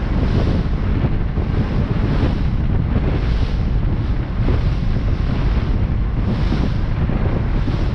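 Wind buffeting the microphone on a pilot boat under way, over the rush of water along the hull, its hiss swelling about once a second.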